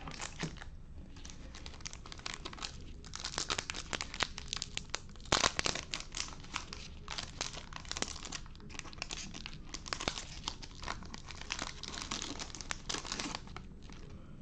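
Foil wrapper of a Topps Chrome trading-card pack being torn open and crinkled by hand: a run of crackling and ripping, loudest about five seconds in.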